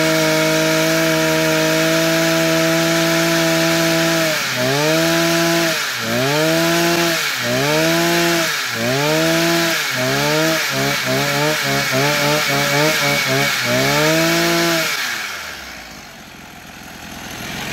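Maruyama MB305SP 30cc two-stroke brush cutter engine running on the bench. It holds a steady speed for a few seconds, then is revved up and down repeatedly, with quicker short blips partway through, and stops about fifteen seconds in. It sounds strong.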